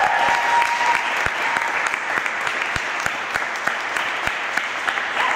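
Small audience applauding, with individual hand claps distinct in a steady patter.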